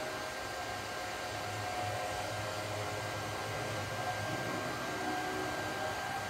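A steady blowing noise from a fan-driven machine, with a low hum and a faint high whine, unchanging throughout.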